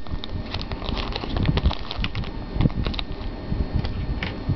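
Siamese cats eating a treat held out in a snack packet: quick irregular clicks of licking and chewing, over low uneven thumps of handling.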